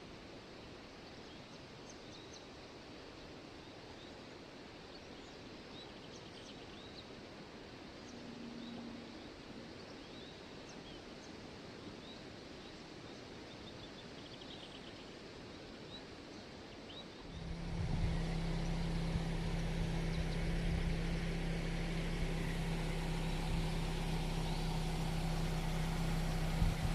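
Quiet riverside ambience with faint, scattered bird chirps. About two-thirds of the way through it switches abruptly to a louder, steady rumble with a constant low hum.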